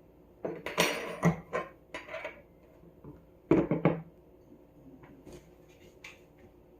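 Serving utensils clattering and knocking against a dish and plate as chicken thighs are picked out and plated, in two bursts with a few light clicks after.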